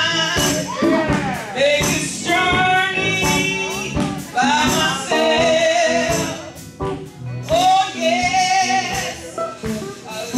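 A woman singing a gospel song live, backed by a band, with a brief lull in the voice about two-thirds of the way through.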